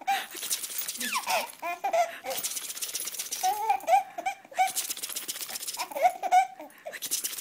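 A baby laughing in repeated bursts of giggles, with keys jangling in between the laughs.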